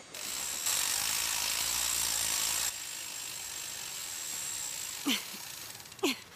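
Motorised rope winch whirring as it hauls the two climbers up the crevasse, a steady mechanical noise with a thin high whine that is louder for the first two seconds, then settles. Two short vocal grunts come near the end.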